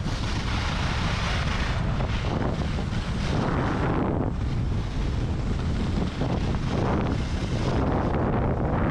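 Wind buffeting an action camera's microphone during a fast ski descent, with the hiss of skis on packed snow rising and falling every second or two.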